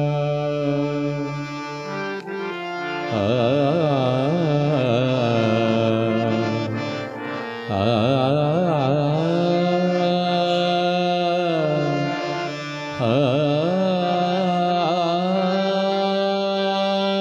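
Indian classical-style devotional music: a singer's wordless alaap in raga Malkauns over a sustained harmonium drone. Three long phrases enter about 3, 8 and 13 seconds in, each with heavily ornamented, wavering glides before settling on held notes.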